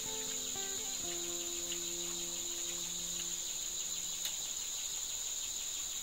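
Steady high-pitched drone of forest insects. Soft background music plays underneath and fades out about three and a half seconds in.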